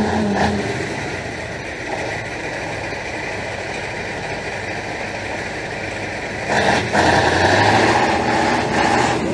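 Engine of a 6x6 off-road truck running as it works through deep snow, growing clearly louder about two-thirds of the way in.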